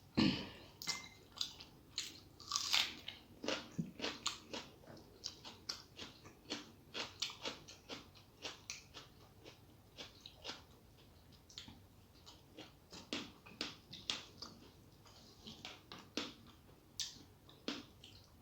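A person eating close to the microphone: chewing and biting a meal of rice with fried vegetables, with many short crunches and wet mouth clicks, a few each second.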